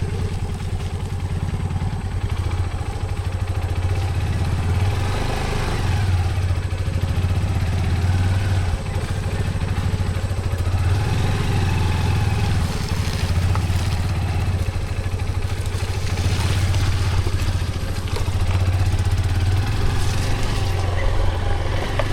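Motorcycle engine running steadily, a low, even hum that swells slightly now and then.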